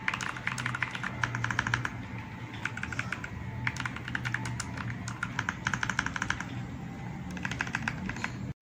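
Fast typing on an RK Royal Kludge R65 gasket-mounted mechanical keyboard: quick runs of key clacks broken by short pauses, over a steady low hum.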